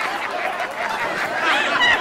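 Restaurant diners chattering and laughing, a crowd of overlapping voices with no single clear speaker.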